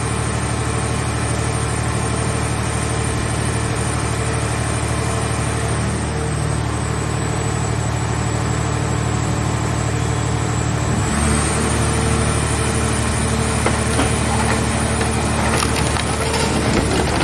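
Car-shell scrap baler running steadily, its engine and hydraulic drive pitching up and coming under load about eleven seconds in. Toward the end, irregular cracking and snapping come through as the car body's sheet metal is crushed.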